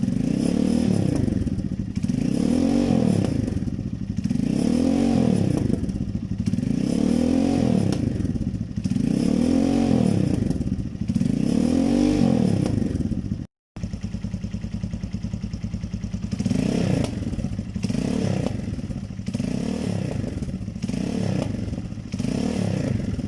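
Vento Rocketman 250 motorcycle with an SC Project aftermarket exhaust, revved repeatedly from idle in short blips, each rev rising and falling about every two seconds. The exhaust pops as the throttle closes at the end of each rev. A brief cut to silence about halfway through, then a run of shorter, quicker blips.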